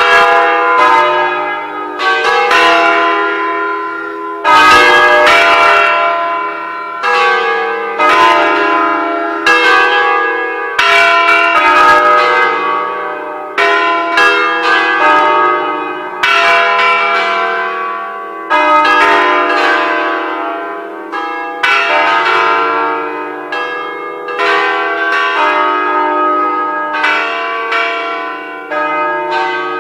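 Church tower bells rung in a solemn concerto, struck one after another at different pitches about once a second, each note ringing on over the next.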